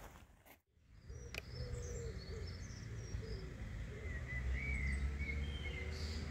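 Outdoor ambience: small birds chirping and calling over a low, steady rumble. The sound cuts out briefly just under a second in.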